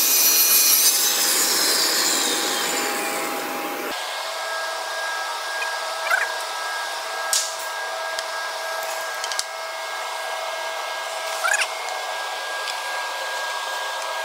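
A CNC panel machining centre's saw unit cuts wood panel for the first few seconds, with a falling tone as the saw winds down. After that the machine keeps up a steady whine with an airy rush, and a few sharp knocks sound as the cut wooden pieces are handled.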